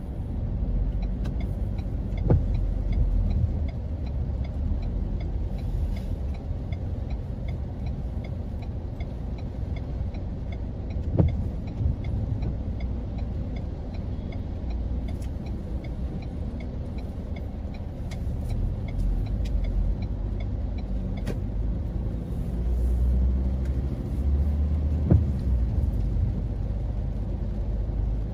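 A car driving on wet city streets, heard from inside the cabin as a steady low rumble of engine and tyres. A faint regular ticking runs through the first half, and a few sharp taps come now and then.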